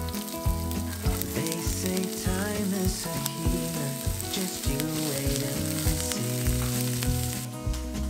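Chopped onion sizzling in hot oil in a nonstick frying pan, a dense hiss that fades out near the end. Soft background music with sustained notes plays throughout.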